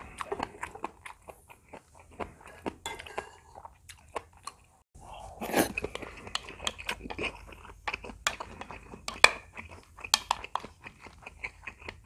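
Close-miked eating sounds: chewing and crunching, with sharp clicks of a wooden spoon and chopsticks against bowls. The sound breaks off for about half a second a little after four seconds in.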